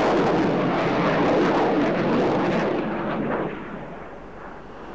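Jet noise from a passing Eurofighter Typhoon fighter: a loud, even rush that thins out and drops away after about three and a half seconds as the aircraft flies off.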